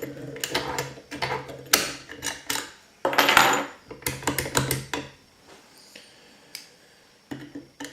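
Metallic clicks and clinks of a key and lock-picking tools being handled at a lever safe lock, with a short scraping rattle about three seconds in.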